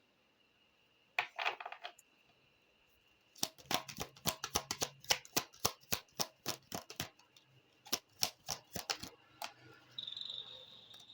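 Tarot cards being handled and laid on a table: a quick cluster of clicks, then a run of sharp taps and card snaps, about three or four a second, as cards are drawn from the deck.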